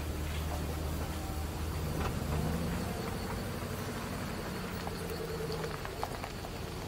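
A pickup truck crawling along a dirt trail: a low, steady engine rumble with the tyres crackling over gravel and small stones clicking now and then.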